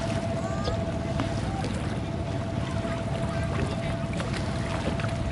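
Open-air river ambience: a steady low rumble with a faint constant hum over it, and a few faint voices.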